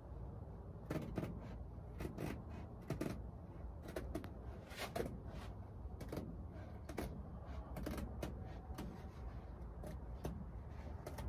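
Irregular soft rustles and clicks of hands working a fitting into the round opening of a canvas tent's stove jack, over a low steady rumble.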